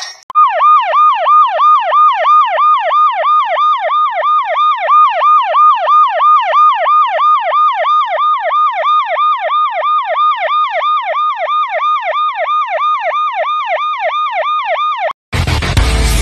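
Electronic siren wailing in a fast repeating pattern, each cycle a quick downward sweep in pitch, about three a second. It cuts off suddenly near the end, and loud music with a heavy bass comes in.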